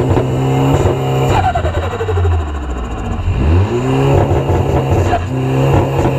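Car engine revved in repeated cycles at a standstill: the revs climb, hold high for a second or two, then drop back with a falling whine as the throttle is released, about once every three and a half seconds.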